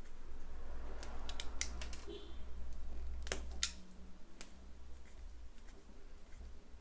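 Scattered light clicks and ticks at irregular times from hands working small electrical wires and a pair of pliers, while the stripped copper wire ends are twisted so their strands stay together.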